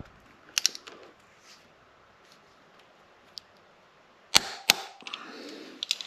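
Sharp clicks and knocks of hard objects being handled: a quick pair early, a louder pair about a third of a second apart a little past four seconds, then a few lighter clicks near the end.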